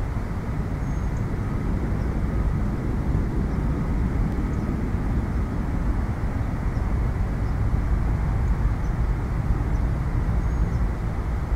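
Steady low rumble of distant city traffic, with a few faint, brief high chirps.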